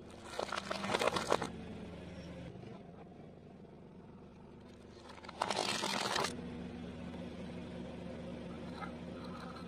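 Plastic toys crushed under a car tyre on concrete: a crackling crunch about half a second in, and a second, louder burst of crunching about five and a half seconds in. A car engine runs steadily underneath.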